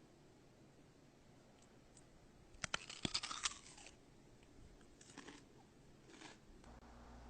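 Crisp food bitten into close to the microphone: a quick cluster of sharp cracks a little under three seconds in, followed by two softer bouts of chewing.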